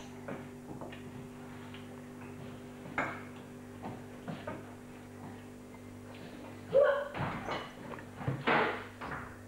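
Knocks and rubbing of a camcorder being handled and moved about, over a steady low hum, with the loudest bumps in the last few seconds.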